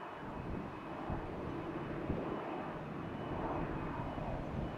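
Distant jet engines of an easyJet Airbus A320-family airliner running as it rolls along the runway after landing: a steady rushing noise with a faint high whine.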